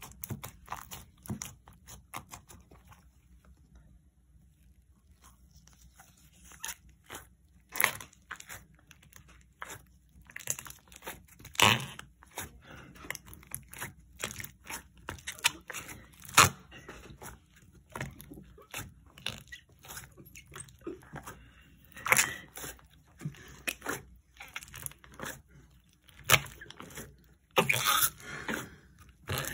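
Slime being squeezed and pressed into a small plastic cup by gloved fingers, making irregular wet crackles and pops, with a louder pop every few seconds.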